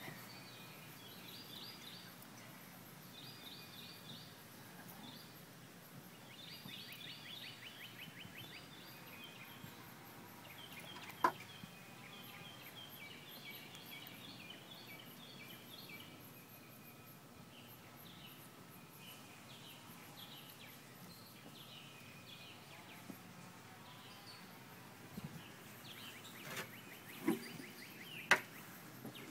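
Wild birds chirping and trilling in short, quickly repeated phrases in the background, with a sharp knock about eleven seconds in and a few more near the end.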